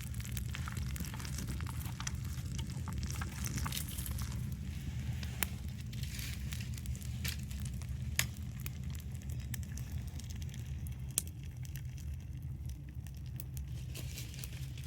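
Wood bonfire crackling, with irregular sharp pops, a few louder than the rest, over a steady low rumble.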